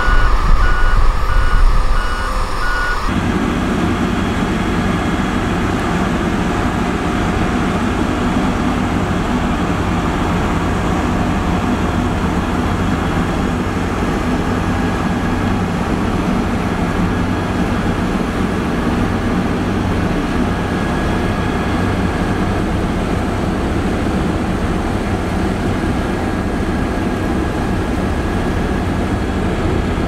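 LiuGong 6122E single-drum road roller's diesel engine running steadily as the roller works over soil. For the first three seconds its reversing alarm beeps rapidly over a heavier rumble, then only the steady engine sound remains.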